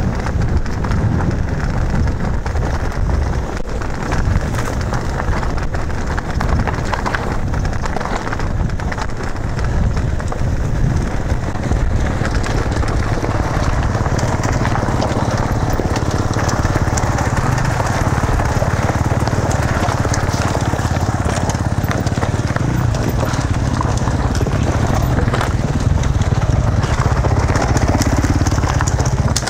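Electric mountain bike descending a loose rocky trail: tyres crunching and rattling over gravel and stones, with a heavy wind rumble on the microphone. From about halfway on, dirt bike engines running close ahead add a steady low drone.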